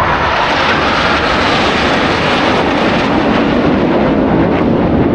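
Jet noise from a formation of KAI T-50 jet trainers flying past overhead: a loud, steady rush from their turbofan engines.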